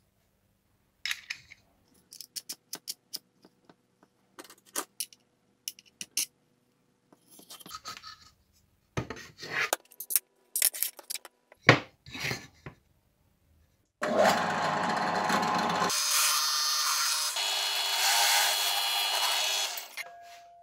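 Small metal parts clicking and tapping as washers and wing nuts are fitted by hand onto bolts through a wooden arm. About fourteen seconds in, a bench drill press starts running, a loud steady noise with several held tones that lasts about six seconds.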